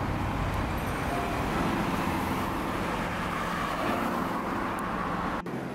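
Road traffic on a wide multi-lane city street: a steady wash of car engine and tyre noise. It cuts off sharply near the end.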